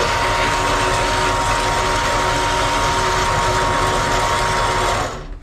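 Horizontal metal-cutting bandsaw running and cutting through a metal bar: a steady motor-and-blade noise with a constant whine. The noise stops suddenly near the end.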